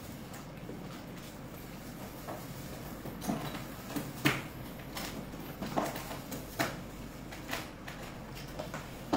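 A permanent marker writing on the lid of a plastic food container, with a handful of sharp taps and knocks on plastic between about three and eight seconds in, over steady room noise.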